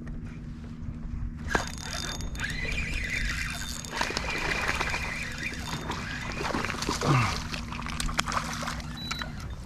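Kayak's electric trolling motor humming steadily, cutting off shortly before the end, with water splashing and sloshing at the hull and a few short squeals over it.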